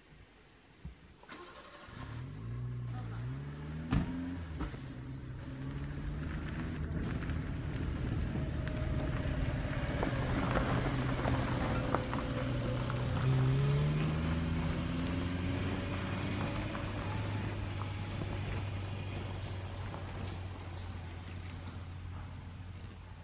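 A motor vehicle's engine approaching and passing, its pitch rising and falling as it changes speed, loudest around the middle and fading toward the end. A single sharp knock about four seconds in.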